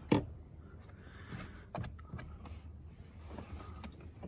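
Light clicks, taps and rattles of plastic car interior trim and tools being handled, with one sharp knock just after the start.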